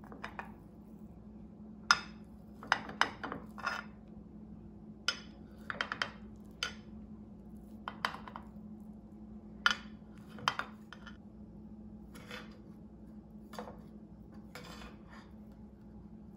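Metal spatula clinking and scraping against a glass baking dish as it cuts through brownies: irregular sharp clicks and clinks, over a faint steady hum.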